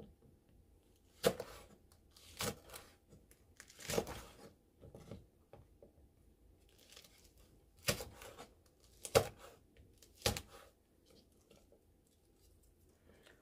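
Kitchen knife slicing green chili peppers on a cutting board: separate, unhurried cuts at irregular intervals, with a pause of a couple of seconds midway.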